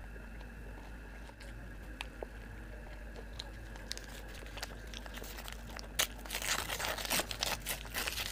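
Quiet chewing with scattered small mouth clicks, then from about six seconds in a dense, loud crinkling and tearing of the tissue paper wrapped around an egg roll as it is peeled back.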